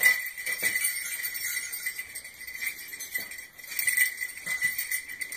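Small bells jingling over and over, loudest at the start and again about four seconds in.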